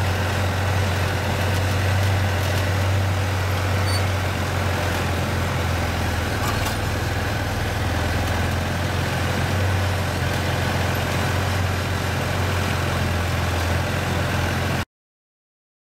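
John Deere tractor's diesel engine running steadily while the tractor pulls a seed drill at slow speed, a low even drone. It cuts off suddenly near the end.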